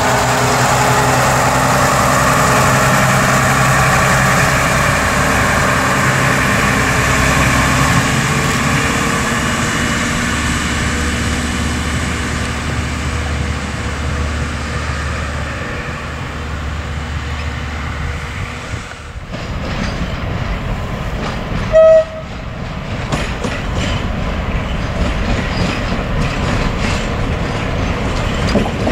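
Diesel multiple unit's engine running steadily as the railcar pulls away and fades. After a cut, an ET22 electric locomotive gives one short horn blast about 22 seconds in, then its freight train's rumble and wheel clatter grow as it draws near.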